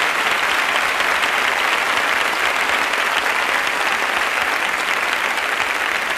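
Audience applauding, steady and sustained.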